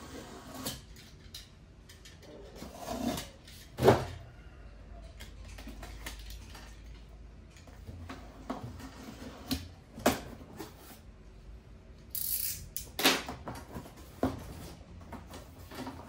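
Cardboard box being opened and a small vacuum cleaner unpacked: scattered knocks, rubs and rustles, with a loud knock about four seconds in and a short hissing scrape around twelve seconds.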